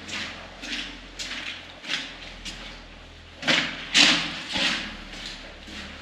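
Footsteps inside a concrete bunker, a string of short knocks about one to two a second, with a few louder thuds about three and a half to four and a half seconds in.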